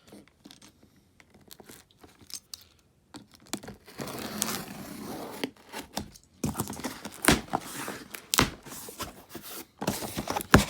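Cardboard box being opened: packing tape tearing and cardboard and packaging rustling. The handling gets busier about four seconds in, and sharp knocks and scrapes follow in the second half.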